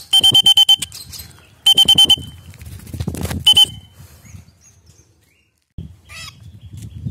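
A hand-held whistle blown in three short trilling blasts in the first four seconds, the last one brief. After a short quiet, low rumbling handling or wind noise.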